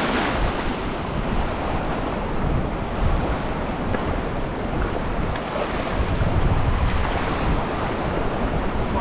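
Shallow ocean surf washing and foaming close by, with wind rumbling on the microphone.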